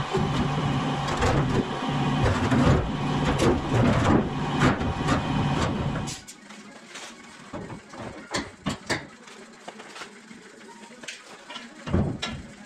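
Clanking and scraping of a corrugated steel container door being handled, over a steady mechanical hum. About six seconds in it cuts off abruptly. After that come scattered light knocks and taps, with one louder knock near the end.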